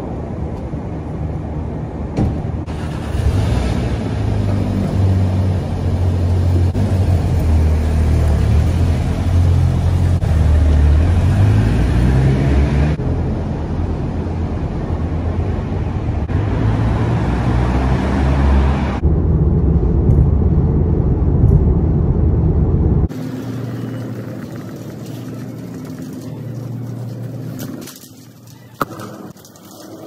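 Volkswagen Golf GTI's turbocharged four-cylinder engine running as the car pulls away and drives off through a parking garage, its pitch rising and falling. After about twenty seconds it gives way to quieter shop ambience.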